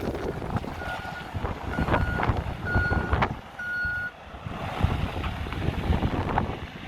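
Reversing alarm of a JCB 3CX backhoe loader beeping four times, about once a second, each beep louder than the last, over the machine's diesel engine running.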